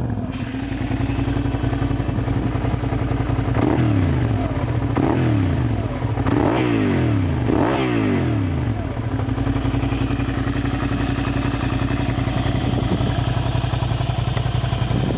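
Suzuki SV650 K4's 645 cc V-twin, breathing through a Scorpion aftermarket exhaust, idling, with about four quick throttle blips in the first half that rise and fall in pitch, then settling back to a steady idle.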